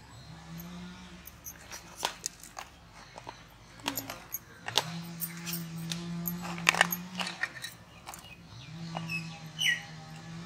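Hard chocolate biscuit halves clicking and clattering on a metal tray as they are twisted apart and handled, in scattered sharp clicks that are loudest around the middle. A low drawn-out call sounds three times behind them, each bending up at its start.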